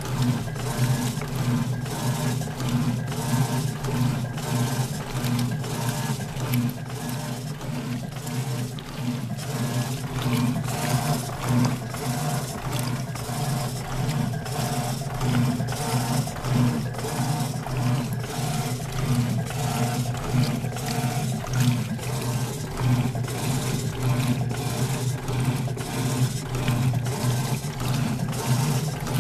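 Electrolux LTR10 top-loading washing machine agitating a load of floor cloths: a steady motor hum under rhythmic water sloshing as the agitator swishes back and forth.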